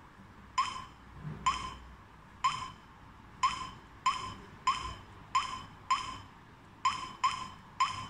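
Touchscreen key-press beeps of a Daytech TA03 alarm control panel, about eleven short beeps at an uneven typing pace as digits are keyed in, each fading quickly.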